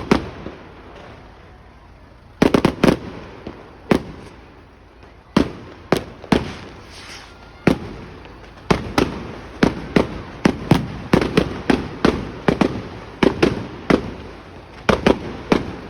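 Fireworks going off: a long, irregular series of sharp bangs, first in scattered small clusters, then coming thick and fast, roughly one or two a second, through the second half.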